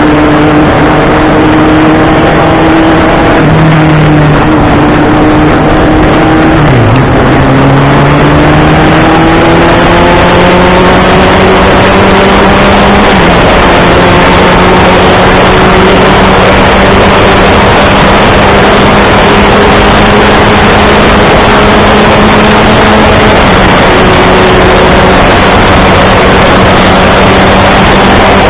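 Honda CB650R's inline-four running through an SC Project full-system exhaust under way. About seven seconds in the note drops sharply, as with a gear change, then climbs slowly and holds steady over a constant rush of noise.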